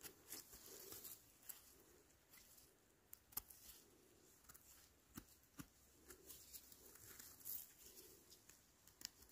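Faint scraping of a pocket knife trimming dirt and debris from the scaly stem of an orange-capped bolete, with a few sharp ticks scattered through it.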